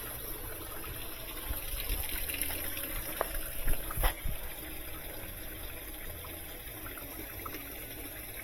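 Estate top-load washing machine filling: water running into the tub through the water inlet valve during the fill cycle. A few light knocks about three to four seconds in.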